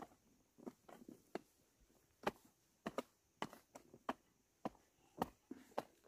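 A string of short, sharp knocks or taps, roughly two a second and unevenly spaced.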